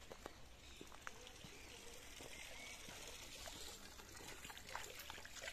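Faint trickling water: a steady, even hiss with a few small clicks scattered through it.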